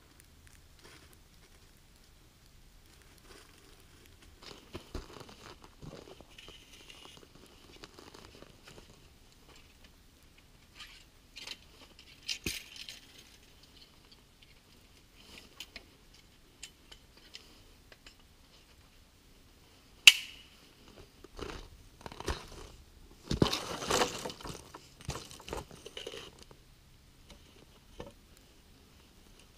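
Footsteps crunching in snow and dry sticks being handled, with scattered crunches and knocks; about two-thirds of the way through comes a sharp crack, then a louder run of crunching and scraping among the branches.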